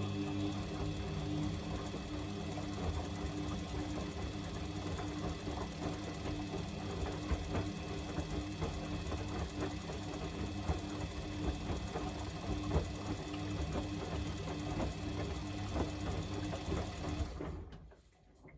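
Samsung washing machine running during a 60°C bedding wash: a steady motor hum with many small clattering ticks, which starts at the outset and cuts off about seventeen seconds in.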